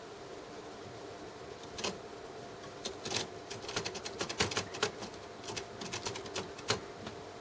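Typewriter keys clacking irregularly as a cat paws and steps on them: one strike about two seconds in, then a quick uneven flurry of clacks for several seconds.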